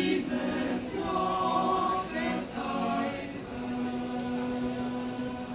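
Mixed a cappella vocal ensemble singing, men's and women's voices together, with no instruments. The phrases settle about three and a half seconds in into one long held note.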